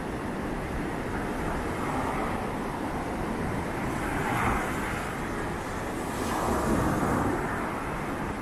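Ocean surf breaking and washing up the beach, with wind rumbling on the microphone: a steady rushing noise that swells twice, about four and a half and about seven seconds in.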